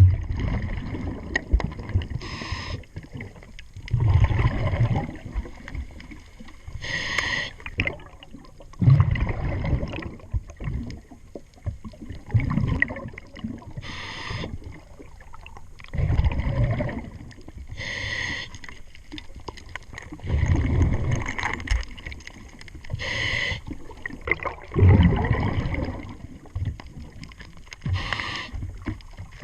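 Scuba diver breathing underwater through a demand regulator. About every five seconds there is a short hissing inhale, followed by a longer burst of bubbling exhaust.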